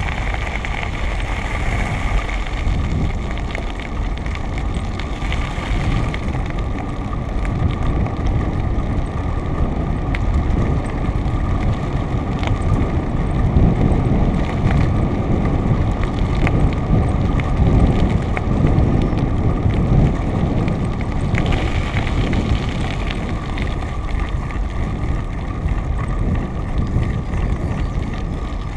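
Steady low rumble of a vehicle travelling along a rough, patched asphalt road, with wind on the microphone.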